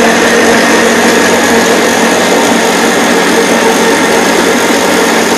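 Stand mixer running steadily at top speed, kneading brioche bread dough.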